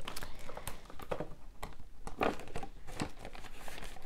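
Paper banknotes and a laminated plastic cash envelope in a ring binder being handled: crinkling and rustling, with several light clicks.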